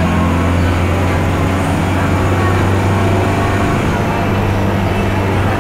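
City bus engine and road noise heard from inside the passenger cabin while driving: a steady low drone with tyre and road rumble.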